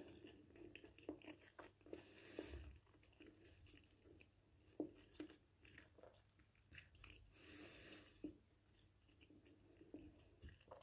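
A person chewing a mouthful of food with the mouth closed: faint irregular crunches and small wet mouth clicks. Two longer soft hisses come about two seconds and about eight seconds in.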